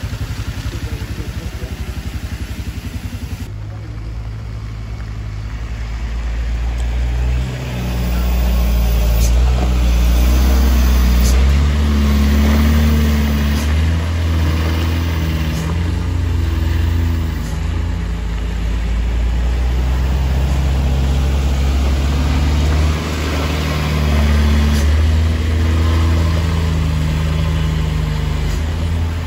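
Diesel truck engines running under load on a rough, muddy road. A change about three seconds in, then a low, loud engine drone builds and holds, its pitch rising and falling.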